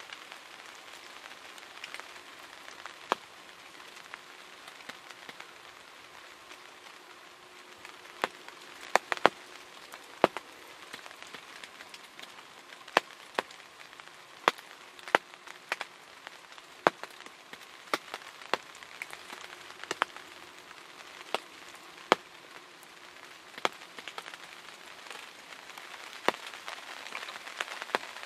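Rain falling on a ground blind: a steady hiss with scattered, irregular sharp taps of single drops striking the blind.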